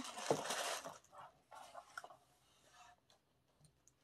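Tissue paper being crinkled and rustled as it is pulled out of a package: a longer crinkle in the first second, then a few short ones and small clicks.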